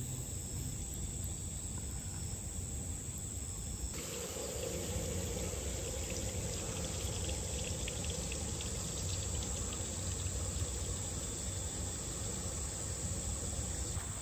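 Insects chirring steadily in one unbroken high tone, with a faint low rushing noise beneath that shifts about four seconds in.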